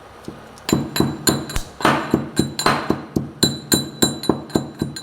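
A pestle pounding in a mortar to crush spices for the tea. The strikes come evenly at about three to four a second, each with a short ringing clink.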